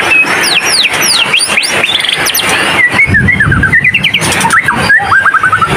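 White-rumped shama singing: a fast run of clear, downward-sweeping whistles, then about halfway through quicker chattering notes and short trills.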